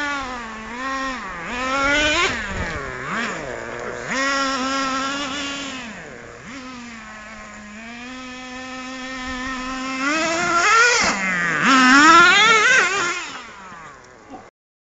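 Traxxas T-Maxx RC monster truck's small nitro engine revving up and down as the truck is driven, its pitch rising and falling over and over. It is loudest near the start and again from about ten to thirteen seconds in, then fades and cuts off suddenly near the end.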